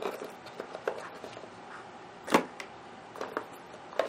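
Light clicks and taps of washi tape rolls being handled and set into the compartments of a cardboard drawer organizer, with one louder knock a little past halfway.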